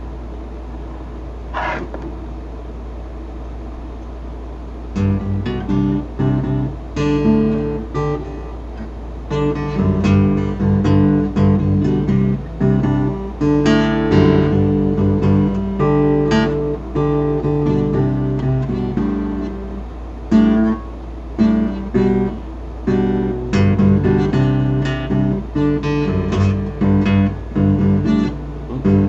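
Acoustic guitar played instrumentally, strummed and picked chords starting about five seconds in over a low steady hum.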